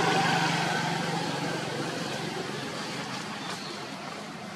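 A motor vehicle's engine running steadily and fading away over the first two seconds, leaving a steady outdoor hiss.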